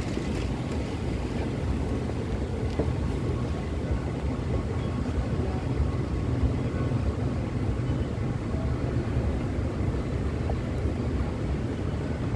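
Steady low rumble of metro station ambience while riding down a moving escalator, with no distinct events.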